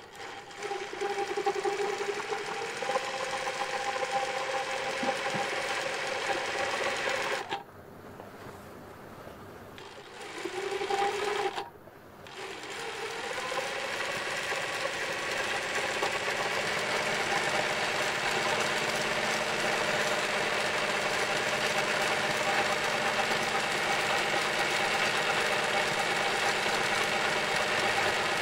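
Zoje 20U53 industrial zigzag sewing machine stitching a saree pico edge at high speed, its whine rising as it gets up to speed. It stops twice, about eight and twelve seconds in, then runs steadily.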